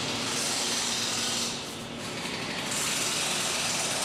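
Tool noise on a truck assembly line: a steady hiss in two spells, each a second or more long, with a brief dip about two seconds in.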